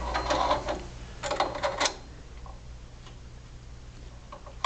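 Small metal parts clicking and clinking as they are handled, in two short bursts in the first two seconds and a faint tick after, over a steady low hum.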